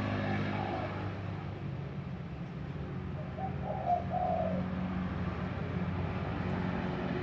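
Mini CNC wood engraving machine running with a steady low hum. A bird coos a few times over it.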